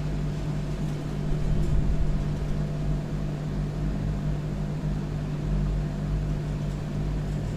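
A steady low mechanical hum with an even hiss, swelling slightly about a second in.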